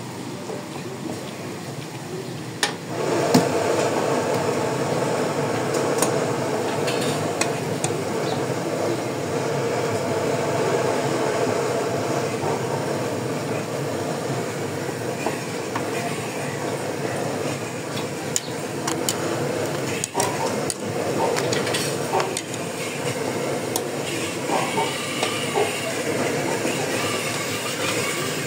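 Layered parathas frying in oil on a large flat iron griddle, sizzling steadily, with metal tongs clicking and scraping against the griddle as they are turned. The sizzle grows sharply louder about three seconds in.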